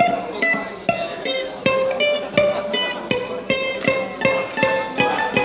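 Mandolin picking a melody in single notes at an even pace, about two and a half notes a second, each note ringing briefly.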